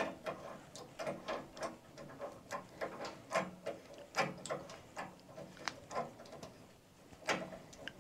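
Brass handwheel gate valves on boiler pipework being turned shut by hand: a run of light, irregular metallic clicks and ticks as the handwheels turn on their stems.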